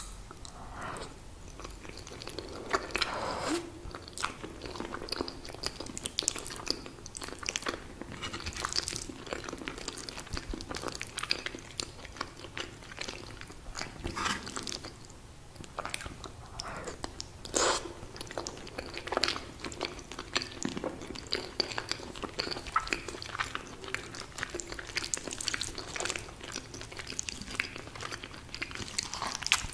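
Close-miked mukbang eating: a person biting and chewing lasagna, with many irregular sharp wet mouth clicks and crunches.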